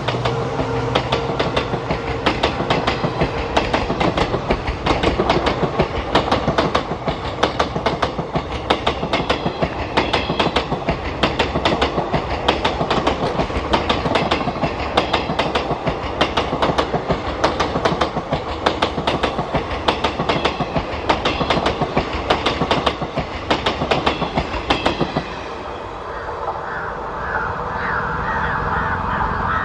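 Passing train's coaches, steel wheels clicking rapidly over the rail joints over a steady rumble. The rattle stops about 25 seconds in, leaving crows cawing.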